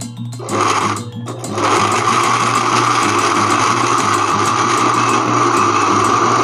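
Electric kitchen blender motor starting with a short burst, dipping briefly, then running steadily from about a second and a half in, grinding the mix fine.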